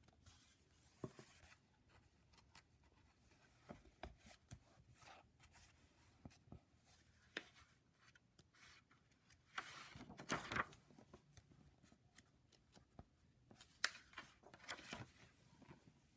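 Faint handling of a hardcover picture book: the cover opened and pages turned, scattered taps and paper rustles, with a louder rustle about ten seconds in.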